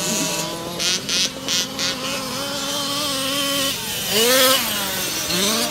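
Small two-stroke petrol engines of several 1/5-scale RC cars revving as they race, their pitch rising and falling with the throttle. The loudest rev rises and falls about four seconds in, as one truck runs close by.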